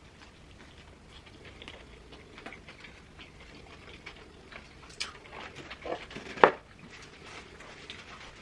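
Eating sounds: chewing and small crunches with scattered clicks, and a louder sharp crunch or clack about six and a half seconds in.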